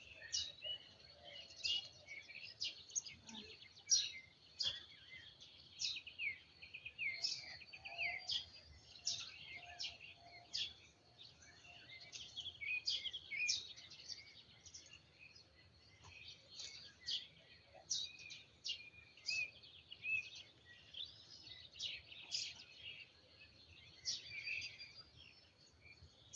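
Small songbirds singing together: a dense, continuous chorus of short, high chirps and trills.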